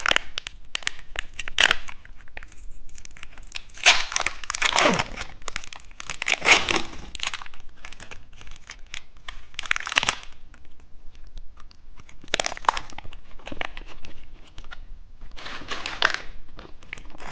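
Plastic wrapper of a cheese stick being torn and peeled open, in a series of crinkling, tearing bursts with short pauses between them.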